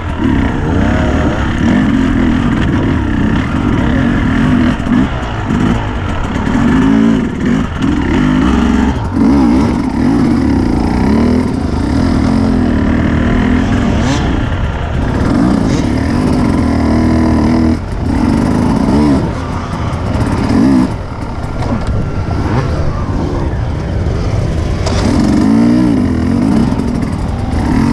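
Enduro motorcycle engines revving hard, their pitch rising and falling again and again in short bursts of throttle.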